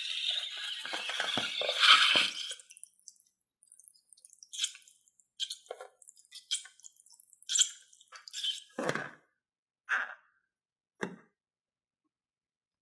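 Slime mixture pouring out of a balloon for a couple of seconds, then a string of separate wet drips and sticky plops, the last about eleven seconds in.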